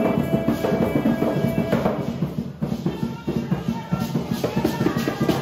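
Garifuna hand drums played in a fast rhythm, easing off briefly about halfway through.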